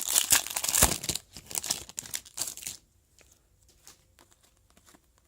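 Crinkling of a foil trading-card pack wrapper being handled, for nearly three seconds, then only faint light ticks of cards being handled.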